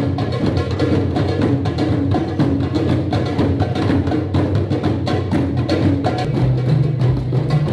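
A group of djembe hand drums played together in a fast, steady rhythm of many close strikes. A deeper low tone joins about six seconds in.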